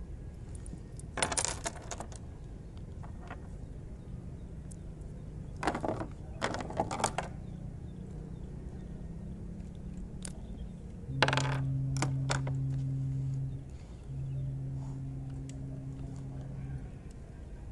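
Light metallic clinking in three short clusters. Later a low, steady hum sounds twice, each time for about two and a half seconds.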